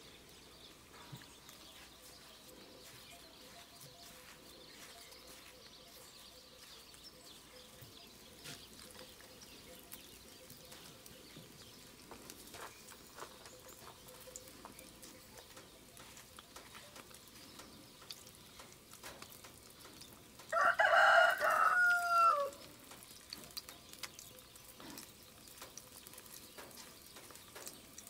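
A rooster crows once, loud and about two seconds long, about two-thirds of the way through, its last note sliding down. Around it, faint clicks and a light frying from breaded mushroom pieces in a pan of oil.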